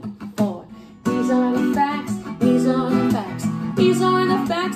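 A woman's voice briefly, then from about a second in an acoustic guitar strummed in a steady rhythm with her singing over it.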